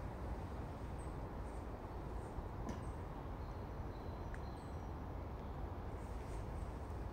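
Outdoor woodland ambience: a steady low background rumble with faint, short, high bird chirps scattered through.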